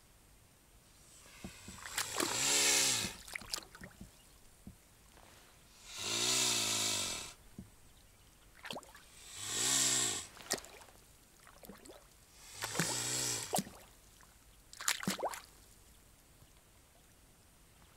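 Mute swan close by making four breathy, rasping calls, each about a second long and a few seconds apart, followed by a quick cluster of clicks near the end.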